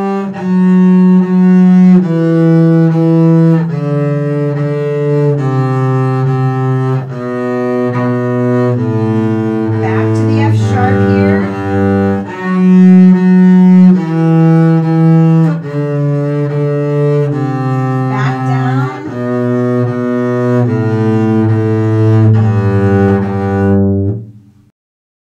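Double bass played with the bow: a descending G scale, two bow strokes on each pitch, starting from the harmonic on the G string. The line steps down to the open G string, jumps back up to F sharp about twelve seconds in, and steps down again to low G, then stops.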